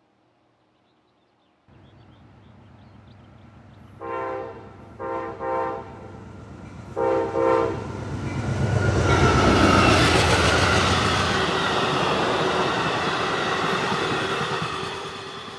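Amtrak passenger train, led by a P42DC diesel locomotive, sounding its horn in five blasts (one longer, then two pairs of short ones) as it approaches, then passing close by with engine noise and wheels clattering over the rail joints, loudest about ten seconds in and fading slightly as the cars go by.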